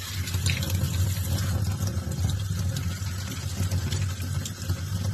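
Pull-down kitchen faucet sprayer running steadily, spraying cold water onto green kaong in a metal colander in the sink.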